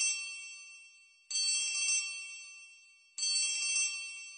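Song intro: a bright, bell-like chime rings and fades away, struck again about every two seconds.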